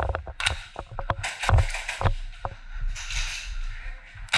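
Clatter of airsoft guns and gear being handled: scattered sharp clicks and knocks, with a heavy thump about a second and a half in.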